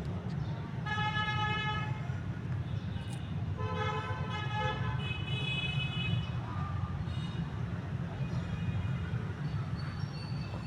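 Steady low rumble of road traffic with vehicle horns tooting: a held horn note about a second in, then more horn toots around the middle.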